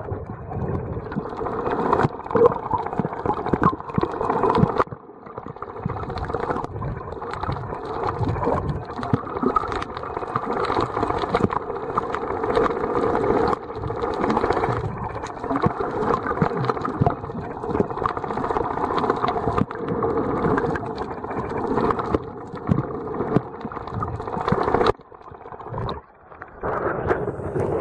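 Muffled underwater water noise picked up by a snorkeler's submerged camera: a steady crackling rush. Near the end the sound drops out briefly twice as the camera breaks the surface into choppy water.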